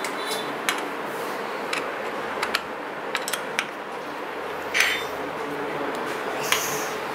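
Allen key and hand tools clicking and clinking against the metal stem bolts of a bicycle's handlebar as they are tightened and adjusted: scattered short metallic clicks, a few louder ones, over a steady background hiss.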